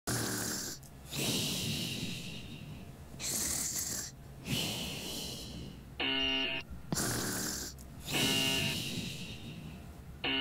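A sleeping stop-motion rat snoring, a comedic sound effect: slow cycles of raspy, breathy in- and out-breaths a second or two long. A short pitched tone comes about six seconds in and again at the end.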